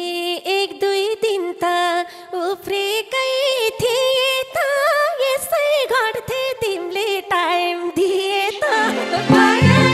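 A woman sings a Nepali dohori folk verse into a microphone, her melody full of quick wavering turns, with the band's accompaniment held back to almost nothing. Near the end the band's drums and instruments come back in.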